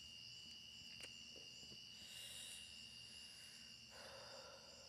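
Faint crickets at night: steady, high-pitched continuous trilling, with a single soft click about a second in.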